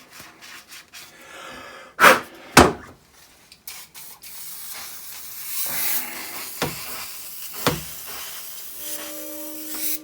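Parts of a Makita multi tool being handled during reassembly: a few sharp knocks, the two loudest close together about two seconds in and two fainter ones later, over a low hiss. Music fades in near the end.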